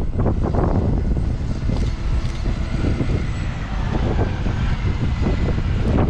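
New Holland T7.315 tractor's six-cylinder diesel engine running steadily under load while pulling a Lemken seven-furrow plough through the soil.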